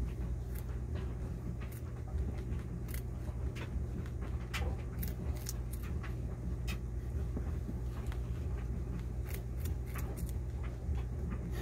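Pet rabbit nibbling a carrot: irregular small crisp crunches as it bites and chews, over a steady low hum.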